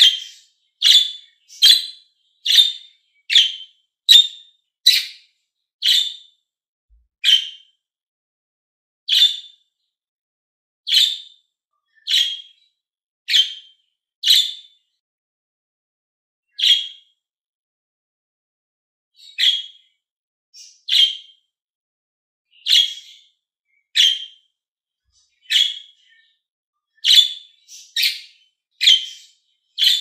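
Pet budgerigars giving short, sharp contact chirps, one call about every second, with a pause of a couple of seconds about halfway through before the calls pick up again.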